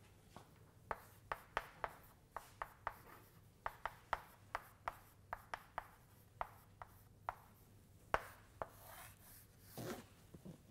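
Chalk writing on a blackboard: an irregular run of sharp taps and short strokes, two or three a second, with a few longer scrapes near the end.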